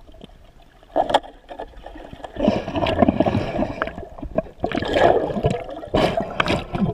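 Water rushing and bubbling around an underwater camera in irregular bursts, about a second in, for a second from two and a half seconds, around five seconds and again near the end, with a cloud of bubbles stirred up.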